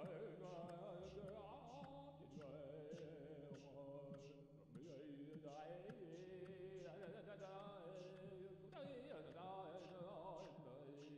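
Faint background music: a wavering melody over a steady low drone, with a light tick about twice a second.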